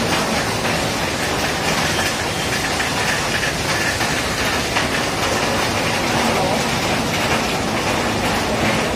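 Heavy rain pouring down steadily onto a wet street: a dense, even hiss.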